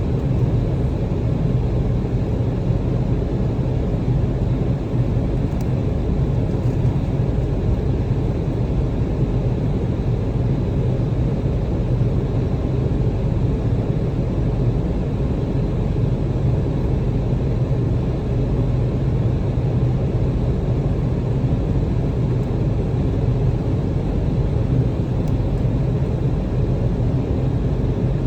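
Steady low rumble of an Embraer 190 airliner's engines and airframe, holding level without rising or falling in pitch.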